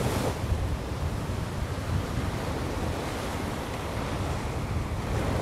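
Sea surf washing onto the beach, a steady rush with a slightly louder surge right at the start, mixed with wind rumbling on the microphone.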